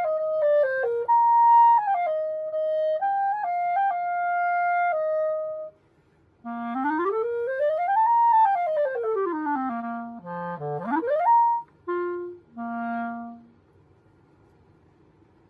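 Pereira Custom Balance Series synthetic 3D-printed plastic clarinet played solo. It plays a short melody of held notes, then after a brief pause a smooth scale up about two octaves and back down, a quick rising run and a few detached notes before stopping.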